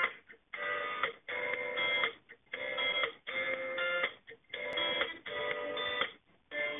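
Background music: sustained chords in short phrases of about half a second to a second, broken by brief gaps.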